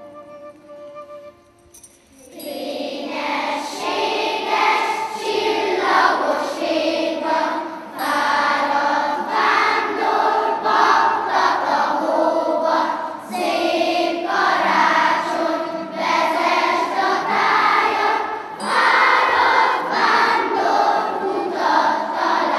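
Children's choir singing together in a reverberant church, coming in about two seconds in after a few soft instrumental notes.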